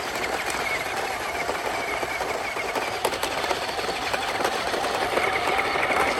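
Small electric motors and plastic gearing of radio-controlled toy construction vehicles whirring steadily, with a fine fast rattle and a brief click about halfway through.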